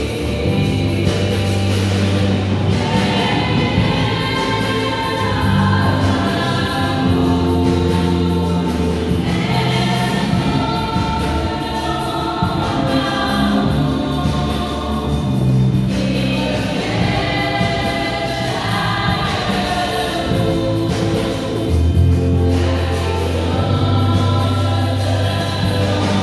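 A female vocal group singing a sacred song together through microphones, over long-held low bass notes from an accompaniment.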